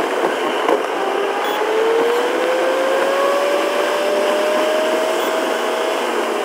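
Steady road and wind noise inside a car's cabin at highway speed. A faint whine rises slowly in pitch from about two seconds in.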